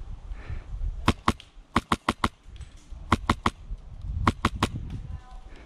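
Airsoft rifle firing about a dozen sharp shots in four quick strings of two to four, each a crisp snap.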